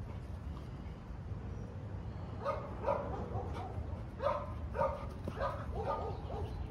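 A dog yipping and whining excitedly in a quick series of short calls, starting about two and a half seconds in, over a steady low rumble.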